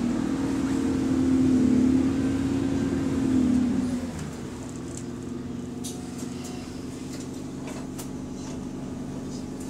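Bus engine and cooling fan heard from inside the passenger saloon: a loud steady hum with a strong drone that drops sharply about four seconds in as the bus comes to a halt, leaving a quieter steady hum at standstill with a few faint rattles.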